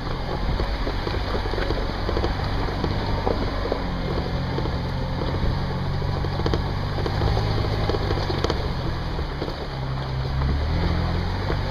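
Off-road vehicle's engine running at low speed as it crawls over a rocky dirt trail, its pitch rising and falling a little, with frequent small rattles and knocks from the vehicle bouncing over the rough ground, heard from inside the open vehicle.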